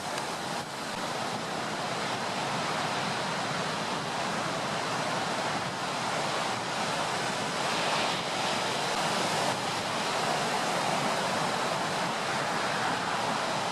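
Storm surf: waves breaking and washing ashore in a steady, continuous wash, with wind.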